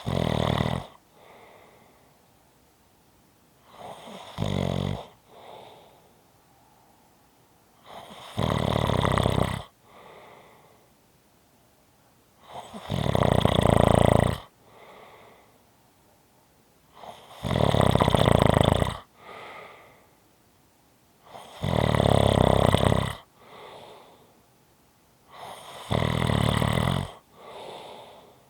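A person snoring steadily: seven loud, rattling snores about four and a half seconds apart, each followed by a softer breath out.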